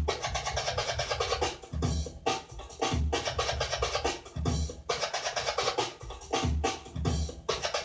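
DJ scratching on a Gemini CDT-05 Pro hybrid CD turntable over a beat, with the sound cut in and out in short chopped pieces and regular bass hits underneath.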